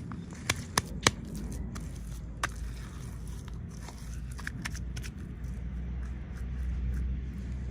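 Scattered sharp clicks and taps, three loud ones in quick succession about half a second to a second in, over a steady low hum.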